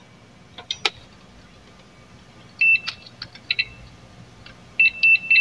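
Multimeter continuity buzzer beeping in short broken bursts as test probes touch a diode on a TV board, after a few clicks of probe contact. A beep across the diode, where there should be none, points to a shorted diode.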